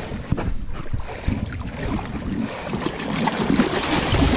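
A king salmon thrashing and splashing in shallow river water, with irregular sloshing and slaps that grow louder near the end.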